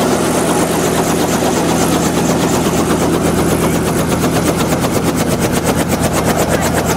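Small two-bladed helicopter running on the ground with its main rotor turning: a rapid, even chop of the rotor blades over a steady engine drone. The chopping grows stronger in the second half.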